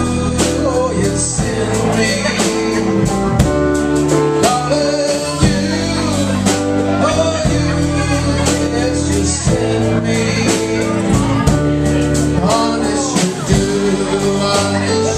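A small live band playing: a man sings into a microphone over upright bass and a drum kit with cymbals.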